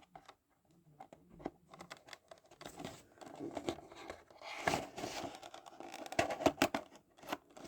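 Toy figure packaging being handled and pulled open by hand: scattered crinkling and rustling of cardboard and plastic with sharp clicks, loudest about halfway through and again near the end.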